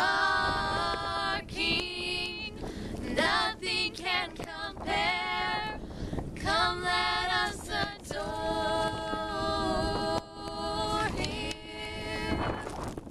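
Three girls' voices singing a hymn a cappella in harmony, in long held phrases with short breaths between them; the singing stops shortly before the end.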